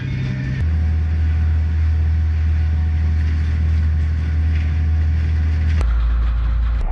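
Steady low drone of a dive boat's engines running; the drone drops in pitch about half a second in and again near the end.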